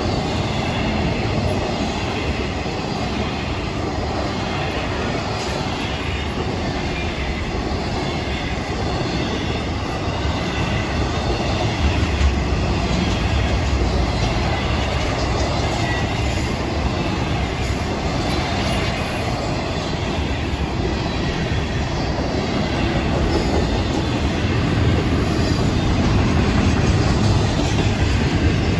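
Double-stack intermodal freight cars rolling past at speed: a steady rumble and clatter of steel wheels on rail, with faint high ringing tones over it, growing a little louder near the end.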